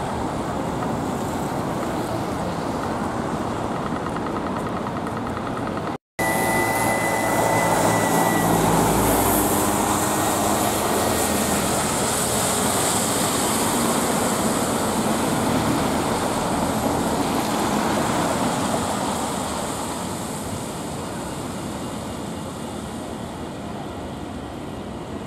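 Traffic on a wet city street: a city bus passes close by, its engine running and its tyres hissing on the wet road, and the noise eases off in the last few seconds.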